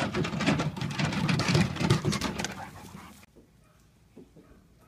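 A dog moving on a wooden dock: a fast run of knocks and scuffs for about three seconds that fades, then cuts off to quiet room tone.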